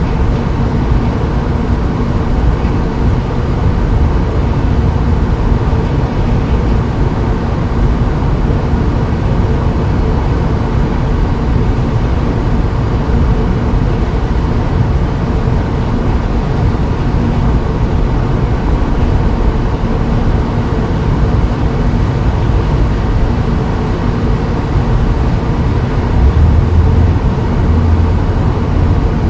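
Steady low rumble of a running vehicle, engine and road noise with a faint hum, growing a little louder near the end.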